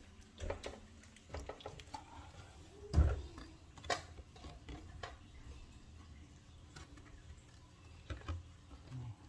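Light handling sounds as a cardboard cut-out template is held up to a hole in a drywall ceiling: scattered taps and scuffs, with one dull thump about three seconds in.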